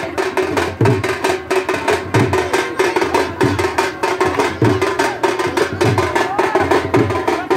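Fast, loud drumming in a steady rhythm: a deep drum beat a little under twice a second under rapid, sharp strokes, the kind of drumming that accompanies lathi khel stick play.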